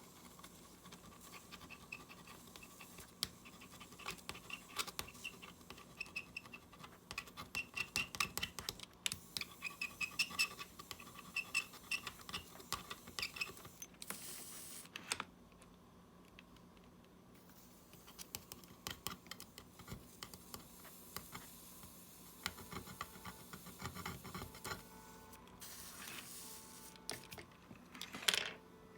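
Light, irregular clicking and scratching of small hand tools on a workbench during fine soldering work, with a short hiss about halfway through and another near the end.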